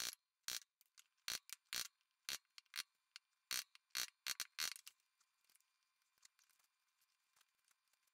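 A chisel chopping by hand into a small wooden block to cut a shallow mortise: about a dozen sharp, irregular clicks and taps as the edge is pressed and struck into the wood. They stop about five seconds in.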